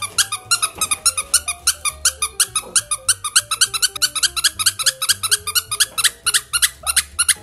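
A fast, even run of high-pitched squeaks, about seven a second, from a sound clip played to test a dog's reaction, over background music with a low beat.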